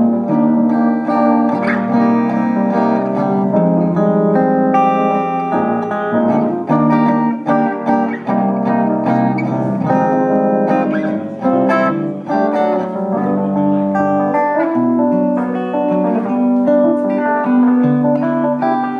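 Live band music led by guitar, playing a continuous stream of plucked notes.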